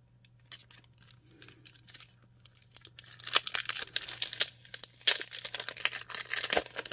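Clear plastic packaging sleeve crinkling and rustling in quick irregular bursts as sticker sheets are handled and slid inside it. It starts about three seconds in, after a few soft clicks.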